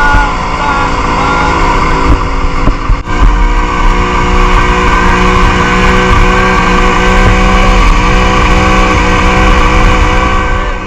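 Motorboat engine running steadily at speed, its pitch holding level with a brief dip about three seconds in.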